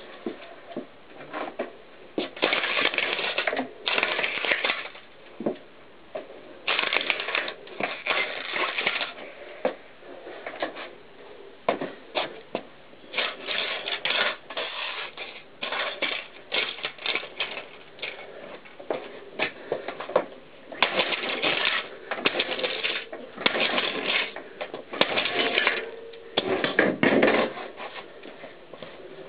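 Plastic VHS cassette shell cracking and crunching as it is crushed under a mountain bike tyre, in irregular bursts with brief pauses between them.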